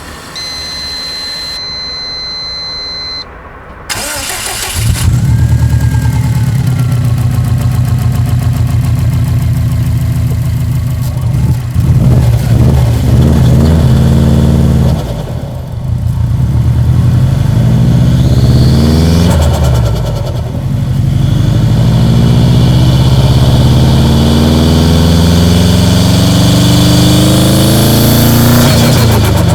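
Subaru Impreza WRX's EJ207 turbocharged flat-four engine starting about five seconds in, after a steady high tone, then idling and being revved up and down several times.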